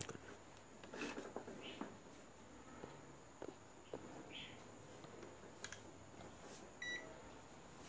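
Faint clicks and rustles of hands handling wires on a workbench, over a steady faint high whine, with one short electronic beep near the end.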